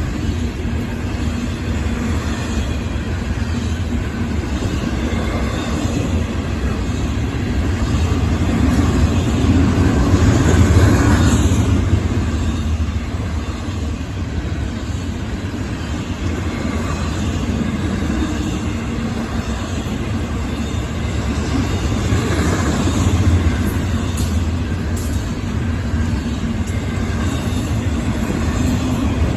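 Florida East Coast freight train's cars rolling past: a steady rumble of wheels on rail that swells for a few seconds around ten seconds in.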